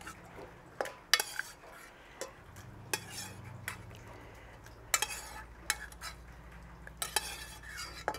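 Metal spoon clinking and scraping against an enamel pot and glass blender jar as cooked tomatoes and chiles are spooned into the blender: about nine separate sharp clinks and knocks, spaced irregularly.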